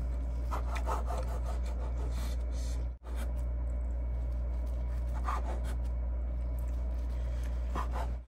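Chef's knife slicing through a rolled egg omelette and meeting a bamboo cutting board, a few separate cuts, over a steady low hum.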